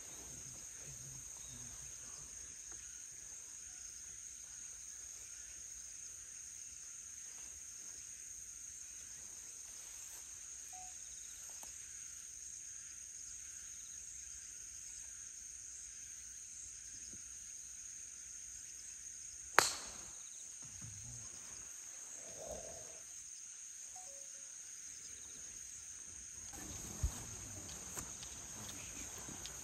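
Insects buzzing steadily in one high, even tone. About twenty seconds in comes a single sharp crack: a golf club striking the ball.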